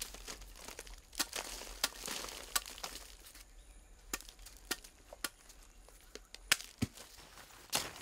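Machete chopping into plant stems: a series of sharp, separate chops at irregular intervals.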